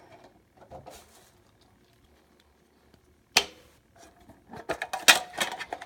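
Hockey card tin being opened and handled: a sharp click about three and a half seconds in, then a quick run of light clicks and rattles near the end.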